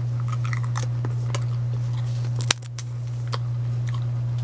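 Wasa rosemary crispbread crunching as it is bitten, chewed and snapped, a run of short sharp cracks, over a steady low hum that is the loudest thing throughout.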